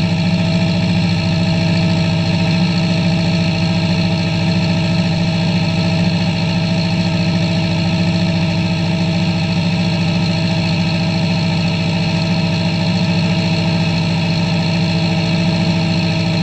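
John Deere tractor's diesel engine running at a steady speed, heard from inside the closed cab.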